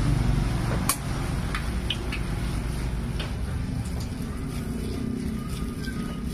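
A metal spoon clicking against a stainless steel bowl a few times, loudest about a second in, as meatball dough is scooped out and shaped by hand, over a steady low background rumble.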